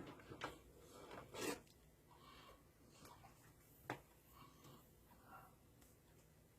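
Near silence with a few faint clicks and handling noises as an oscilloscope probe is being hooked up.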